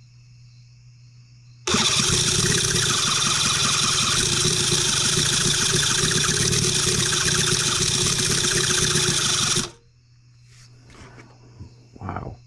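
Electric starter cranking a Cison L4-175 miniature four-cylinder flathead engine for about eight seconds. The engine turns over without starting, and the sound cuts off suddenly when the starter button is released.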